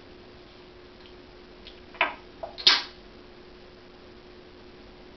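African grey parrot making sharp clicking sounds: three short clicks about two seconds in, close together, the last one the loudest, over a steady faint hum.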